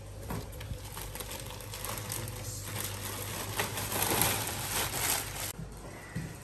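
Plastic bag crinkling and rustling as it is pulled off a loudspeaker in its cardboard box. It cuts off abruptly near the end.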